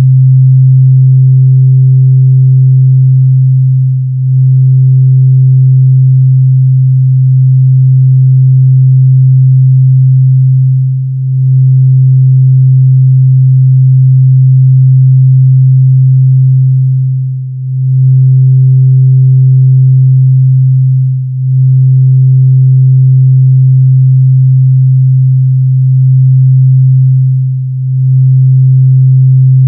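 Electronic drone music: a loud, steady deep tone with a fainter higher tone held above it, dipping briefly every few seconds before swelling back.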